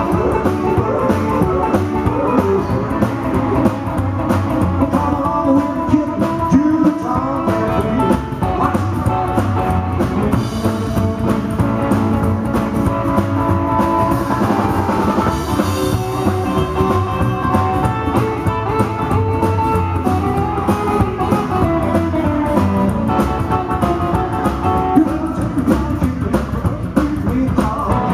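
Rockabilly band playing live: electric guitar, strummed acoustic guitar, upright double bass and drum kit together at a steady, driving tempo.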